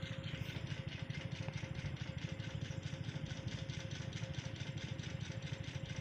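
An engine idling steadily with an even, fast beat, with a thin steady hum above it.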